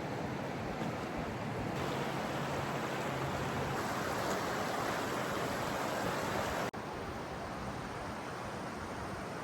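Steady rush of fast-flowing river and waterfall water, an even hiss with no rhythm. There is a sudden momentary break about seven seconds in, where it cuts and resumes.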